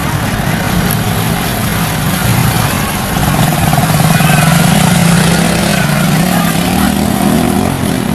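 Mitsubishi Fuso truck's diesel engine straining while the loaded truck is stuck in deep mud. The engine note swells and rises slightly about halfway through, then eases back.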